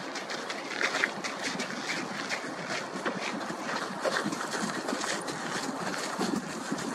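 Harbour Air DHC-3T Turbo Otter floatplane's turboprop engine running as it taxis on the water, heard from a distance as a steady engine noise with open-air ambience.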